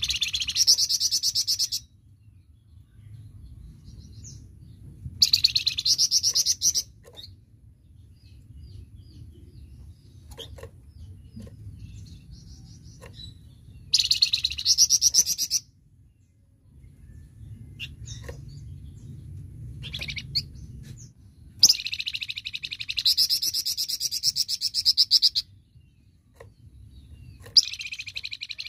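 Flamboyan songbird singing its rapid-fire 'tembakan' song: five bursts of very fast, high repeated notes, each about one and a half to four seconds long, with quiet pauses between. A faint low hum runs underneath.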